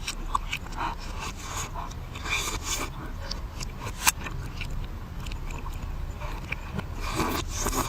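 Close-miked mukbang eating sounds played backwards: irregular wet chewing, crunching and smacking clicks, with one sharp click about four seconds in.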